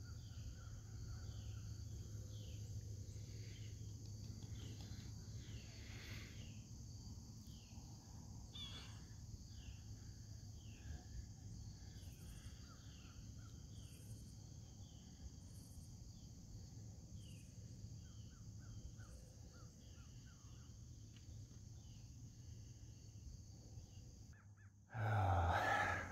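Evening lakeside ambience: a steady high chorus of crickets with short, falling bird calls repeating about once a second, over a low rumble. A brief, louder rush of noise comes near the end.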